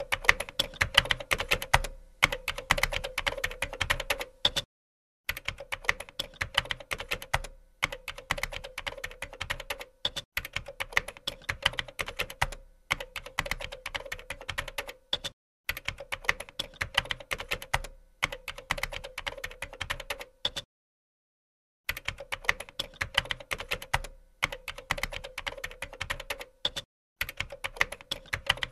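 Rapid keyboard typing: dense clicking of keys in runs of about two seconds, separated by short gaps of dead silence.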